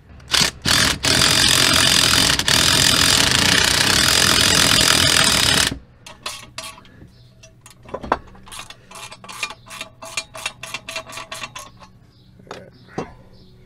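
A Ridgid 18-volt cordless power tool gives three short blips, then runs loud and steady for about five seconds, backing out an exhaust manifold bolt, and stops abruptly. After that comes a long run of rapid clicking from a hand ratchet wrench turning the bolts loose.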